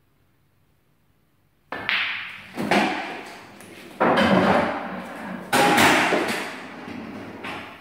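A pool shot: the cue strikes the cue ball with a sudden loud knock about two seconds in, then three more loud knocks follow, each fading over about a second, as the balls collide and an object ball is potted and rolls away through the table.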